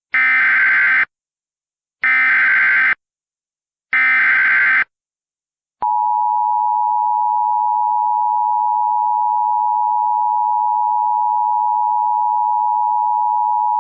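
Emergency Alert System SAME header: three identical bursts of warbling digital data about a second long, two seconds apart, followed by the steady electronic attention-signal tone lasting about eight seconds that cuts off abruptly. The header and tone announce the start of an emergency alert, here a flash flood warning.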